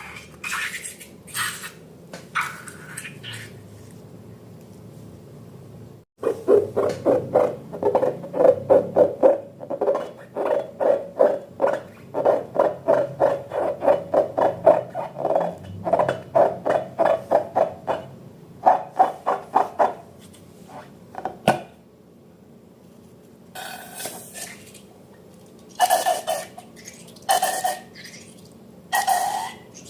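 Slime being stirred and squished in a bowl: a long run of rapid wet strokes, about four or five a second, then a pause and a few scattered squishes near the end.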